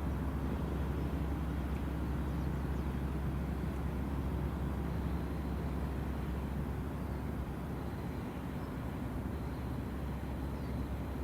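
Steady low engine rumble with an even hum, unchanging throughout.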